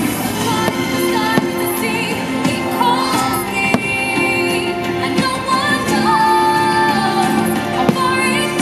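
Fireworks show soundtrack: a song with singing over full instrumental backing, with several sharp firework bangs cutting through the music.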